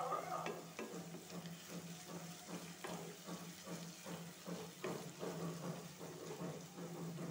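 Spatula stirring sliced onions and ginger-garlic paste frying in oil in a pan: repeated scraping strokes over a soft sizzle as the paste is sautéed until its raw smell is gone.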